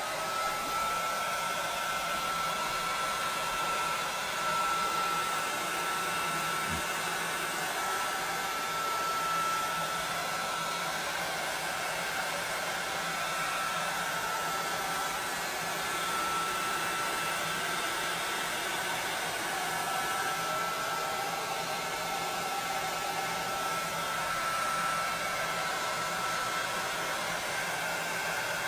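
Handheld heat gun running steadily, blowing hot air across wet acrylic paint on a canvas: a constant rush of air with a steady high whine from its fan motor.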